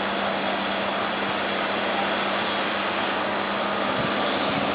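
Steady, even hiss with a faint constant low hum underneath.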